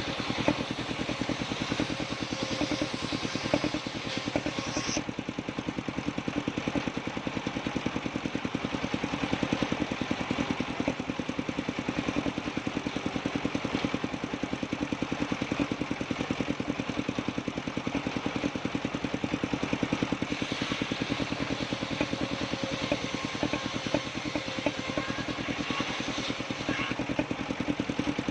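Engine of a circular sawmill running steadily, its firing heard as an even, rapid beat. A brighter, higher layer of the sound cuts off about five seconds in.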